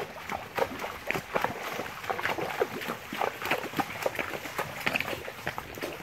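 Mule and horse hooves walking through a shallow, rocky creek: irregular clops on stone and splashes in water, several steps a second.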